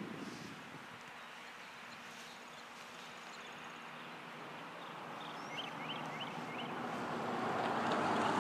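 A pickup truck approaching on the road, its tyre and engine noise growing steadily louder over the second half. A few short bird chirps come a little past halfway.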